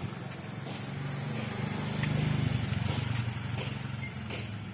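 A motorcycle engine running in a street, recorded through a phone's microphone: its low hum swells to its loudest about two seconds in and then fades.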